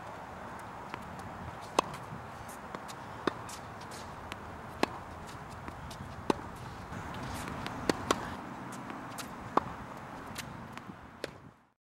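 Tennis rally: a tennis ball struck by racket strings, with sharp hits about every second and a half and fainter ball bounces and footsteps between them, over a steady background hiss. The sound fades out near the end.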